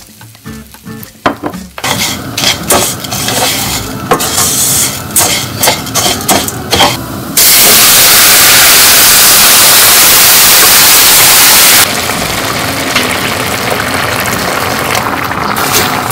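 Raw rice poured into hot olive oil in a stainless steel pan, then toasted with a sizzle and crackle while a wooden spoon scrapes and stirs it. About seven seconds in, vegetable broth goes into the hot pan with a sudden loud, steady hiss that cuts off sharply some four seconds later, leaving a quieter simmer under the stirring.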